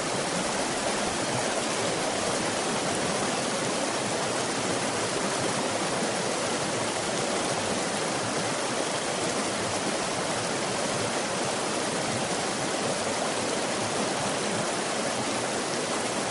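Steady rushing noise like running water, even and unchanging, with no pitch or rhythm.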